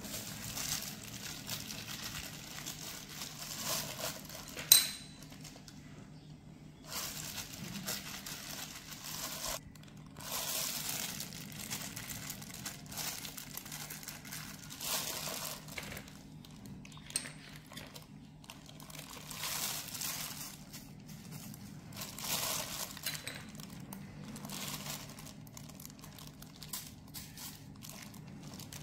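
Disposable plastic glove crinkling in repeated bursts as a hand kneads raw chicken thighs in soy sauce marinade in a stainless steel bowl. One sharp metallic clink with a short ring about five seconds in.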